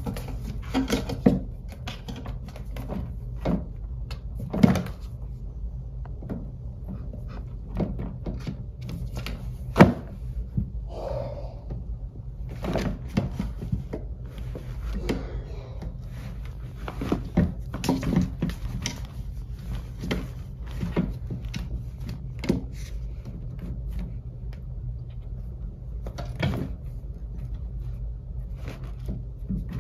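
A cat batting and biting a catnip toy mouse on a hard floor, with irregular knocks, taps and thuds from its paws and the toy striking the floor and the legs of a wooden stand. A low steady hum runs underneath.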